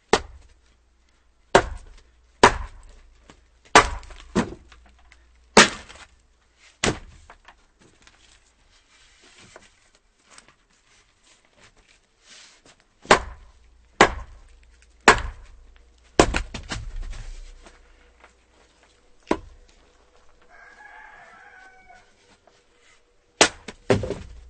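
Axe chopping firewood: about fourteen sharp, loud strikes on wood, in bursts with a pause of several seconds between about 7 and 13 seconds in. A rooster crows once in the background about 21 seconds in.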